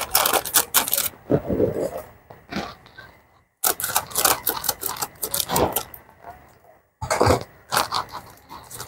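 Plastic packaging of powdered formula milk crinkling and rustling as a pouch and its inner bag are handled and opened, in quick irregular crackles that cut off abruptly twice.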